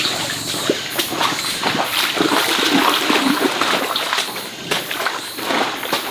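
Water splashing and sloshing in a stream, in many irregular splashes.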